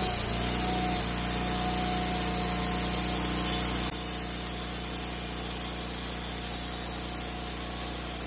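Air-cooled engine of a portable band sawmill running steadily under a constant hum, with a steady whine over it; the level steps down suddenly about four seconds in.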